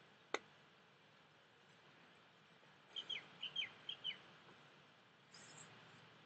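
Bird chirping: about six short high chirps in quick pairs, each dropping in pitch, about three seconds in, after a single sharp click near the start.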